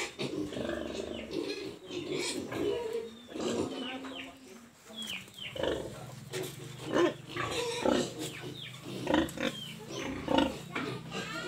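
Pigs grunting and squealing in a rapid, overlapping run of short calls. A steady low hum comes in about halfway through.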